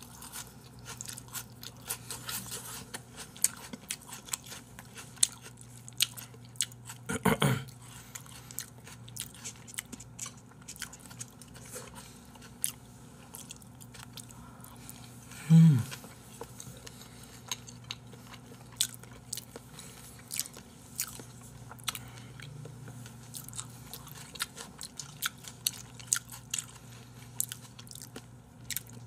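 Close-miked eating: chewing and biting on raw salmon and raw beef, with many small clicks over a low steady hum. Twice a short sound falls in pitch, the louder one about halfway through.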